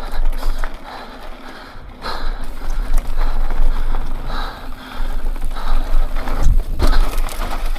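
Mountain bike riding over rough rocky trail: tyres crunching and the bike rattling and clattering over the bumps, under a constant low rumble.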